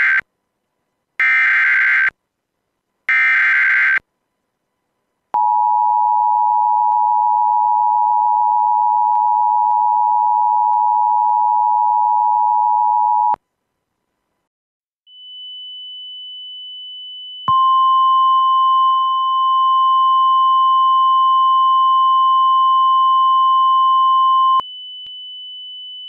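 Emergency Alert System tones. First come three short bursts of the screeching SAME digital header, then the two-tone EAS attention signal (853 and 960 Hz) held for about eight seconds. After a short gap a fainter high steady tone starts, and a single steady alert tone near 1050 Hz joins it for about seven seconds.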